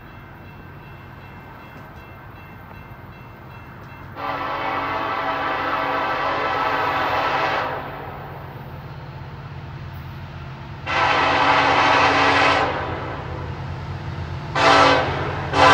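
Norfolk Southern freight train's diesel locomotive air horn sounding two long blasts, a short one, and a fourth blast starting at the end. This is the long-long-short-long pattern of a grade-crossing warning. Under it is the steady low drone of the approaching diesel locomotives.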